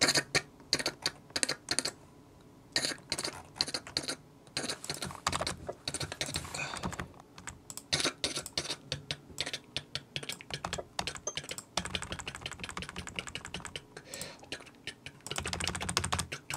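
Typing fast on a computer keyboard, close up: quick irregular runs of key clicks broken by short pauses.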